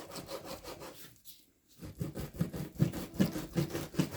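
Knife sawing back and forth through raw beef on a cutting board, cutting it into small pieces for the meat grinder. Repeated rasping strokes, about two or three a second, with a brief pause a little over a second in.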